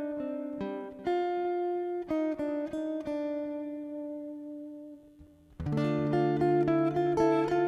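Acoustic guitar: a few chords struck and left to ring, fading almost to silence about five seconds in. Then rhythmic picking starts again with low bass notes underneath.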